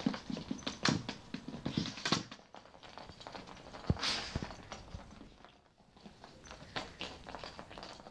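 Hard plastic treat balls knocking and rolling over carpet as dogs push them with their noses, treats rattling inside, with the dogs sniffing at them. Irregular knocks and taps, the sharpest around one, two and four seconds in.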